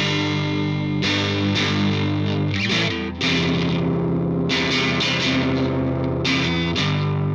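Instrumental music led by distorted electric guitar playing sustained chords, with a strum or hit roughly every half second to a second.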